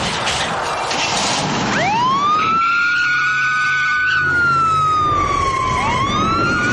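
Police car siren wailing. It sweeps up about two seconds in, holds, slides down, then sweeps up again near the end, over the noise of the cars in the chase.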